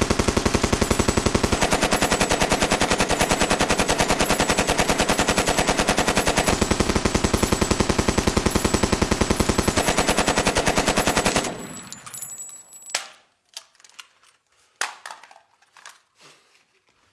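Automatic gunfire: a long, unbroken burst of rapid, evenly spaced shots that stops abruptly about eleven and a half seconds in. A few scattered clicks and clinks follow.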